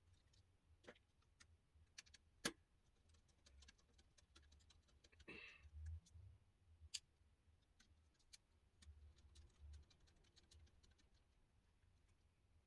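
Faint clicks and taps of small plastic and metal laptop parts being handled during disassembly, with a sharper click about two and a half seconds in and another around seven seconds, and a brief scrape near five seconds.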